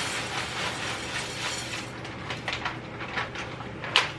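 In-shell sunflower seeds pouring from a bag into a bowl: a continuous clatter of seeds on seeds that stops about two seconds in, followed by scattered clicks as the last seeds fall and the bag is handled, the sharpest one near the end.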